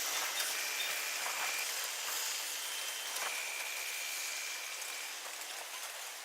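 Steady hiss of rain falling during a thunderstorm. A thin high tone sounds twice, each held for a second or two.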